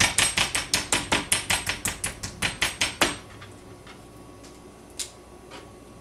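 A metal meat mallet pounding raw chicken tenderloins flat on a plastic cutting board: a fast, even run of about five blows a second that stops about three seconds in, with one lone knock near the end.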